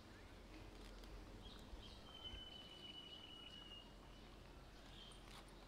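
Near silence: faint outdoor background noise, with one faint, thin high tone held steady for about two seconds, starting about two seconds in.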